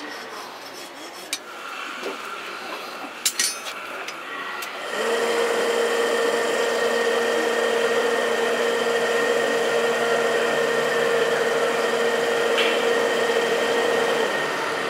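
A few light metallic clinks, then about five seconds in the electric air blower of a coal forge starts and runs steadily, a motor hum over rushing air that blasts the fire while steel heats in it. It cuts off shortly before the end.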